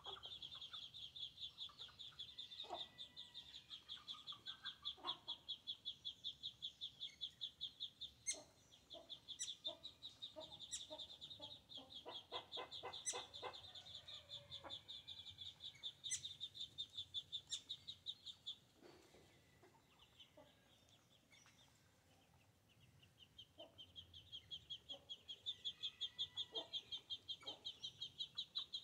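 Hens clucking softly and pecking at corn, with a quick run of sharp taps in the middle. A high, rapidly pulsing trill sounds over them, stops about two-thirds of the way through and starts again near the end.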